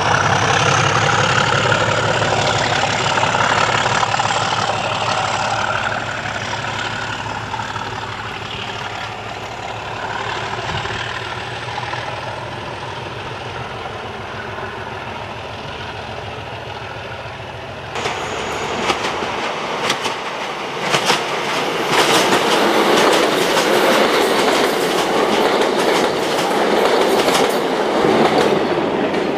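Loco-hauled sleeper coaches rolling round a curve, the wheels on the rail giving a steady rumble with a wavering squeal that slowly fades as the train moves away. After a sudden change about 18 s in, another train runs past close by, its wheels clicking quickly over the rail joints.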